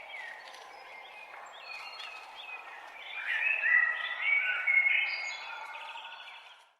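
Dawn chorus of songbirds, including a common blackbird's fluted song phrases, over a faint background hiss. The singing grows louder a little past the midpoint, then fades out just before the end.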